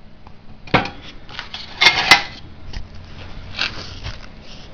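A few light knocks and rattles of handling, loudest in a quick cluster about two seconds in, over a faint steady hum.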